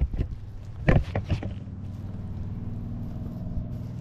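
A few sharp knocks and scuffs as the tiller's steel chain-case cover is handled, then a steady low engine hum that sets in about two seconds in.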